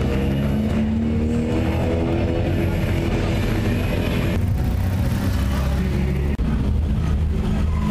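Lancia 037 rally car's supercharged four-cylinder engine revving as the car pulls away, its pitch rising over the first couple of seconds. About four seconds in the sound cuts to another car's engine running.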